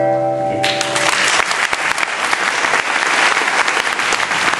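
The song's last held note, with guitar, dies away about a second in as an audience starts applauding; the applause then keeps going.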